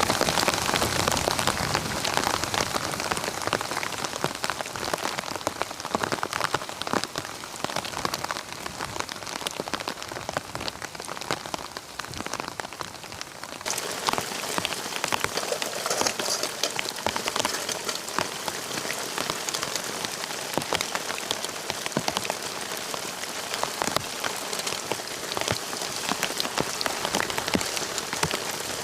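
Steady rain, with many separate drops striking close by. About halfway through, the sound shifts and the high hiss grows brighter.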